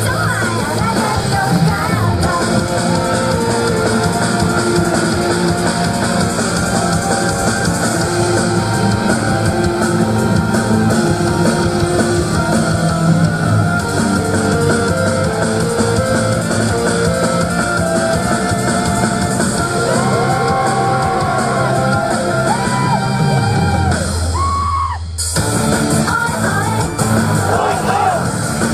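Upbeat girl-group pop song performed live, with female singing over a loud backing track with drums and guitar. About 24 seconds in, the music briefly drops to a single held bass note, then the full track comes back.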